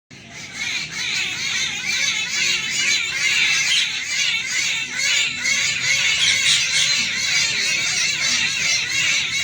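A flock of birds chirping and squawking all at once, a dense, unbroken chatter of many overlapping high calls.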